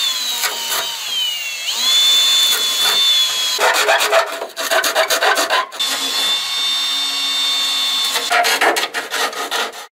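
Cordless drill running at high speed with a high whine that falls in pitch at first, then holds steady in two long runs, with rough grating and knocks between the runs.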